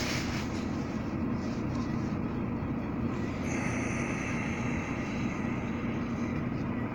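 Steady car engine rumble heard from inside the cabin, with a higher hiss joining a little past halfway.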